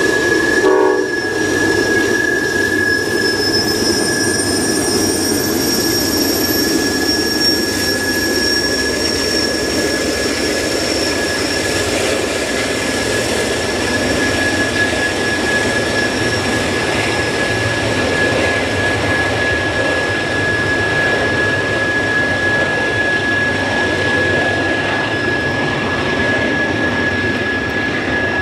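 Norfolk Southern double-stack intermodal train rolling past upgrade, its cars rumbling steadily on the rails, with one steady high-pitched squeal held throughout. A brief pitched note, the tail of a horn blast, ends about a second in.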